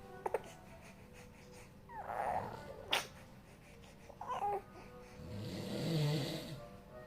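A man snoring: one long snore of over a second, starting about five seconds in. Before it come a few short snuffling sounds, a sharp click, and a baby's brief whimper.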